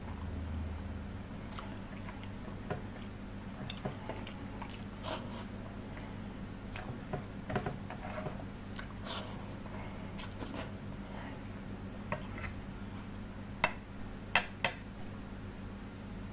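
Fingers squishing and scraping curry-soaked rice around a stainless steel plate, with chewing and scattered small clicks, over a steady low hum. Three sharp clicks near the end are the loudest sounds.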